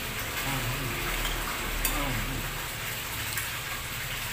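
Light clicks of utensils against plates and a cake box, the clearest about two seconds in, over a steady background hiss.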